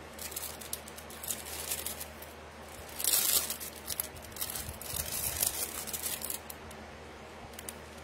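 Small plastic jewelry bag crinkling and rustling in the hands, in irregular handfuls, loudest about three seconds in.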